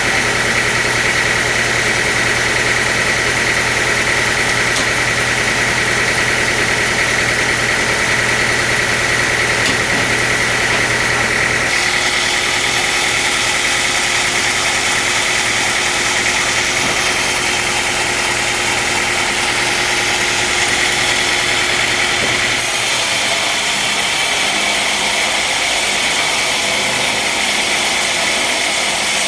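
Sawmill machinery running steadily, a motor hum with a high whine over it. The sound changes abruptly about twelve seconds in and again near twenty-three seconds in.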